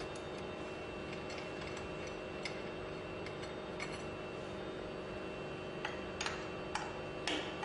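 Scattered metallic clicks and taps of hand tools working on a progressive cavity pump's tie rods, over a steady hum. The taps come louder and closer together about six seconds in.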